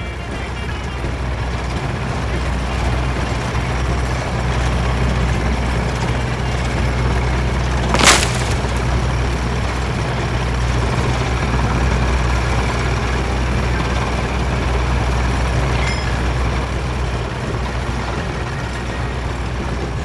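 Road roller engine running with a steady low rumble that grows louder over the first few seconds. About eight seconds in there is one brief, sharp burst of noise.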